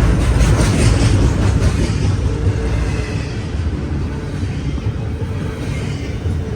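CSX intermodal freight train rolling past: a steady, loud rumble of wheels on rail.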